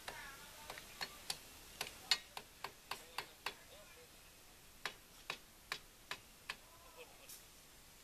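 Sharp metallic taps from a hand tool striking steel at a rebar cage, about two to three a second in two runs with a pause in the middle.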